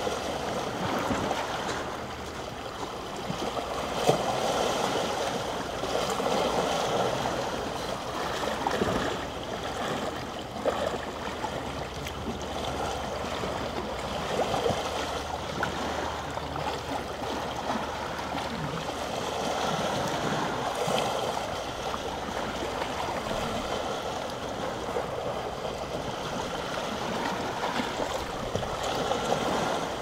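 Small sea waves lapping and washing against a stone beach, swelling and easing every few seconds, with a single sharp tap about four seconds in.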